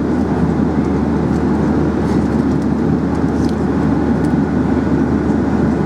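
Steady cabin roar of a Boeing 737-800 jet airliner, engine and airflow noise heard from inside the passenger cabin, with a few faint ticks.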